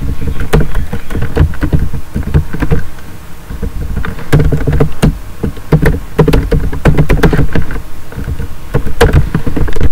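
Typing on a computer keyboard: quick, irregular key clicks with brief pauses between runs.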